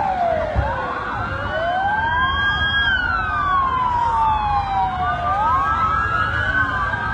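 Several emergency-vehicle sirens wailing at once, their slow rising and falling tones overlapping, over a low rumble.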